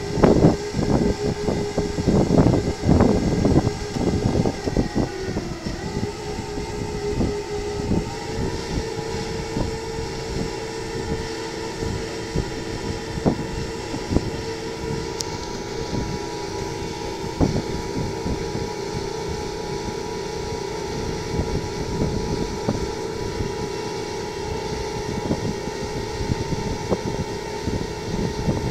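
Tractor engine running under load, driving a Schuitemaker Rapide self-loading forage wagon as it unloads grass: a steady droning hum. Clattering knocks fill the first few seconds, and the engine pitch dips and then steps up between about six and eight seconds in.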